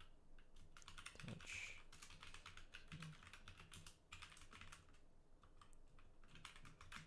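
Faint typing on a computer keyboard: quick runs of key clicks, thinning to a lull a little past halfway before picking up again.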